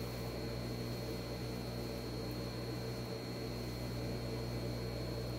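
Steady electrical hum with a thin, faint high whine above it, unchanging throughout.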